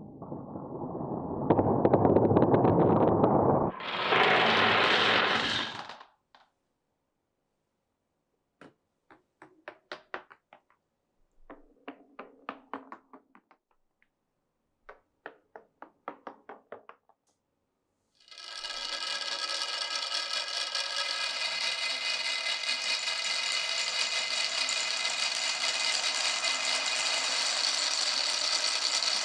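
Marbles rolling and clacking along a wooden marble run: a loud rolling rush for the first few seconds, then several short runs of rapid clicks. About two-thirds of the way through, a steady motorised whir with a buzzing hum starts and keeps going.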